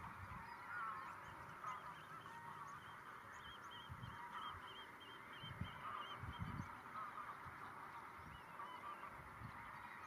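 A large flock of red knots calling, a dense, continuous chatter of many overlapping short calls. About three seconds in there is a quick run of higher, evenly repeated calls, and a few low thumps come now and then.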